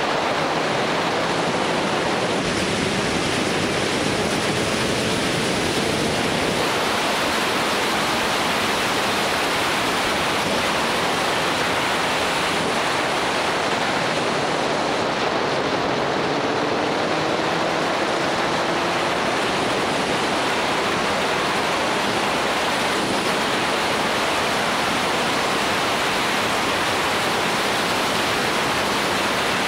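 Steady rush of wind over the microphone of a camera mounted on a moving motorcycle, with the bike's engine faintly audible underneath, its note climbing slowly twice.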